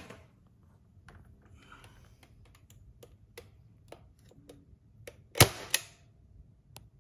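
Scattered light clicks and taps from small hard objects being handled, with two louder sharp clicks close together about five and a half seconds in.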